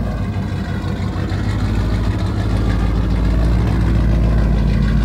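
The 1996 Ford F350's 460 (7.5 L) big-block V8 idling steadily, heard at the tailpipe, running on a newly replaced distributor that cured an intermittent shut-off from a failing profile ignition pickup (PIP).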